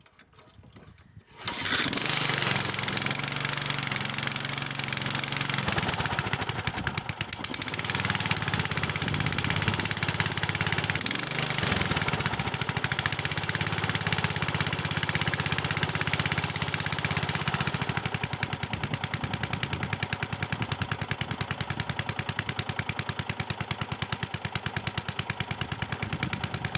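Honda HR215 lawnmower's petrol engine cold-started at about half throttle, catching suddenly about a second and a half in and then running steadily. It gets a little quieter about two-thirds of the way through.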